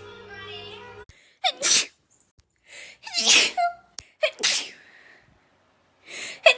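A woman sneezing three times in a row, each a sharp, loud burst after a quick intake of breath, with the breath for a fourth sneeze drawn in near the end.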